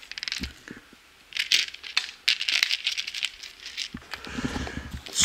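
Loose LEGO pieces clicking and rattling in a plastic parts tray as a hand rummages through them, in several short spells of clatter.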